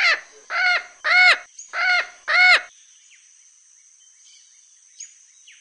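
Parrot squawking: five short calls in quick succession, each rising then falling in pitch, over the first two and a half seconds.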